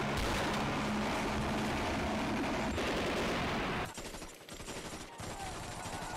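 Action-film gunfire: a dense, continuous burst of rapid machine-gun fire for about four seconds. It then drops to quieter, scattered single shots.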